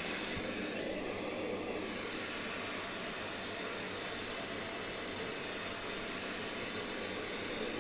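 Electrolux Aqualux EW1006F washing machine filling through its water inlet, a steady hiss of water running into the drum.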